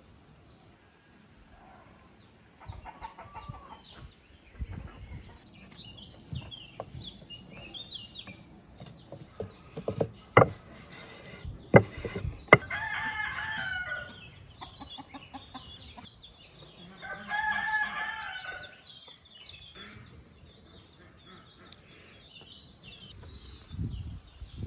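A rooster crows twice, each crow about a second and a half long, with small birds chirping. A few sharp knocks come just before the first crow.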